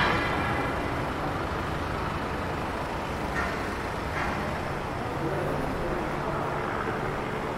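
Road traffic on a city street: a steady rumble of engines and tyres from passing vehicles, with a low engine hum coming in about halfway through.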